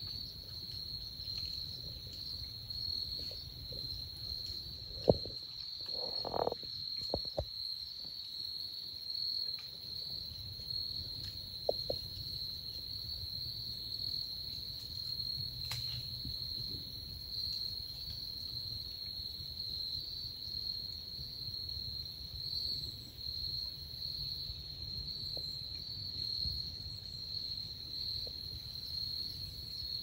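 Steady high-pitched chorus of insects in the woods, with a low rumble underneath and a few short clicks and knocks in the first half.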